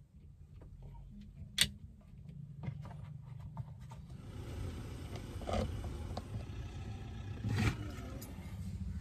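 Sharp plastic clicks and knocks from steering column switch and trim parts being handled and fitted, with one loud click about a second and a half in. Under them is a low rumble that grows louder from about halfway.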